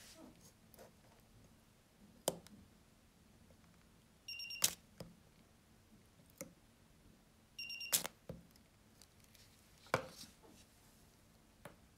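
Portable battery spot welder firing twice on a nickel strip: each time its buzzer gives a short beep and a sharp snap follows as the weld pulse goes through the strip, about four and eight seconds in. Between the welds the copper electrode tips click and tap against the strip.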